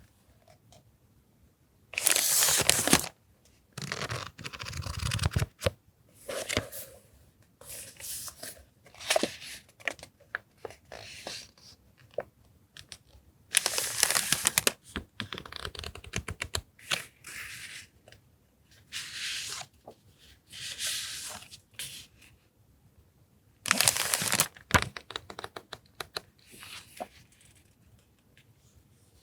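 Paper stationery and its packaging being handled: stop-and-start rustling and crinkling, with three louder bursts about two, fourteen and twenty-four seconds in.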